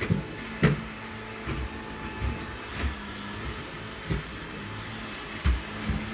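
Household vacuum cleaner running steadily with a low hum, broken by about seven short knocks and thumps as it is pushed around, the loudest less than a second in.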